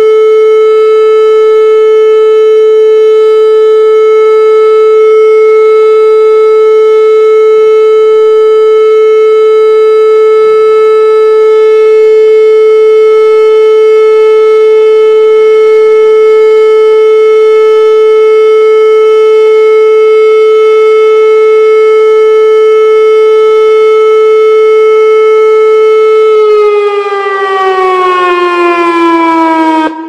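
Civil defense warning siren sounding one long, loud steady tone, then winding down with falling pitch in the last few seconds.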